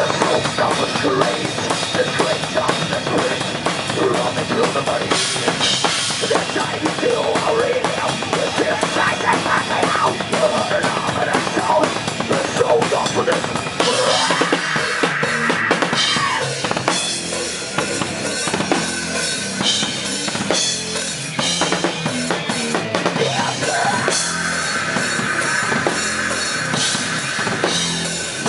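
Heavy metal band playing live, an instrumental passage with the drum kit's bass drum and snare to the fore; the sound of the passage changes about halfway through.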